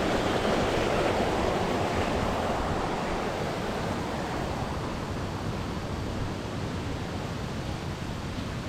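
Steady rushing outdoor noise, easing a little over the last few seconds.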